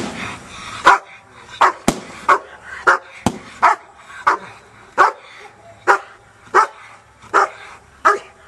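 Young German Shepherd (an 11-month-old in protection training) barking steadily at the man in front of it, one sharp bark about every 0.7 seconds, a dozen or so in a row.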